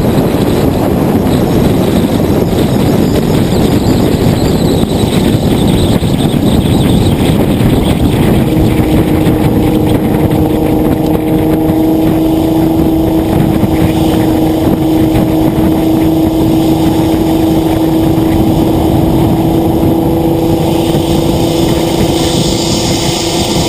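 R35 Nissan GT-R's twin-turbo V6 cruising at steady speed under heavy road noise. A steady engine drone rises out of the noise about a third of the way in and holds at one pitch.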